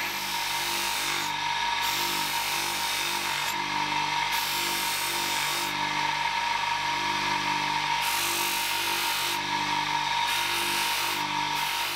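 A power tool running steadily while working a piece of material, with an even back-and-forth rhythm of strokes about twice a second.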